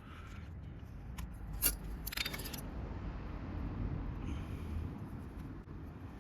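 Small metal tools or parts being handled: a couple of sharp clicks, then a brief metallic jingle about two seconds in, over a low rumble.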